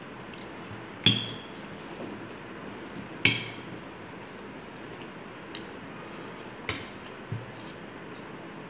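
Hand-eating from a ceramic plate: sharp clinks with a brief ringing, one about a second in and a louder-ringing one near three seconds, then fainter taps later, over a steady hiss.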